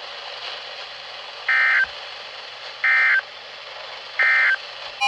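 Emergency Alert System SAME header on NOAA Weather Radio: three short, identical bursts of warbling digital data tones about 1.3 s apart, over steady radio hiss. The header encodes a new alert, here a severe thunderstorm warning.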